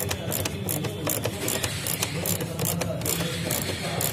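Hand ratchet driver with a T25 Torx bit clicking irregularly, several clicks a second, as screws of a plastic air filter housing are backed out, over a steady low hum.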